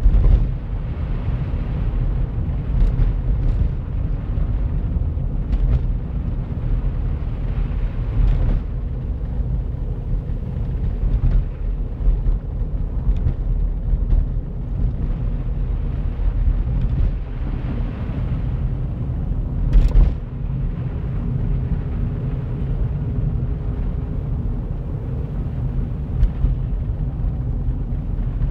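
Steady low rumble of a car's engine and tyres heard from inside the cabin while driving on a wet, snowy road, with a few short knocks or rattles, the loudest about twenty seconds in.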